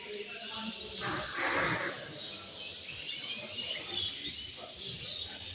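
Caged canaries chirping and trilling, with quick runs of repeated high notes, over background chatter. A short hiss comes about a second and a half in.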